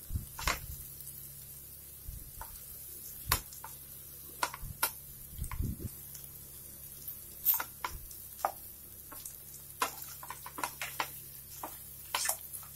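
A spatula stirring and scraping pieces of chicken fry around a nonstick frying pan, with short scrapes and taps scattered throughout over a faint sizzle.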